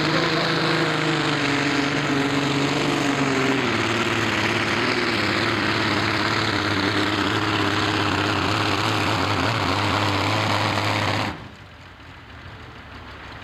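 Modified pulling tractor's blown engine at full throttle, pulling the weight sled, running loud and steady for about eleven seconds. It then drops off sharply to a much lower level as the throttle is let off.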